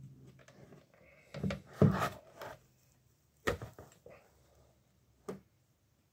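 Handling knocks and plastic clicks as a charging cable's plug is fitted into the port on top of an XTOOL IK618 diagnostic tablet. There are about four of them, the loudest about two seconds in.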